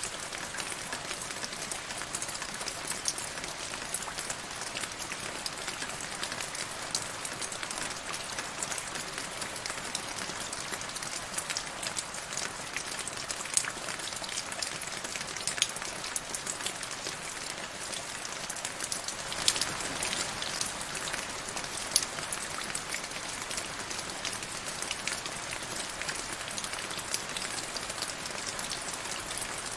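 Steady rain falling into a shallow puddle and onto wet grass, with many separate drop splashes ticking over a continuous hiss. It grows a little heavier for a few seconds about two-thirds of the way through.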